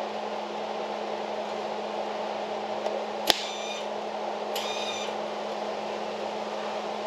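Wire-feed welder humming steadily with its cooling fan running, with two short bursts of arc welding on the steel rail about three and four and a half seconds in, the first opening with a sharp click.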